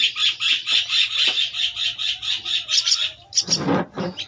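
Javan myna nestlings calling, a fast run of short raspy calls about five a second, typical of begging chicks. The calls stop a little after three seconds in, and a brief louder noise follows.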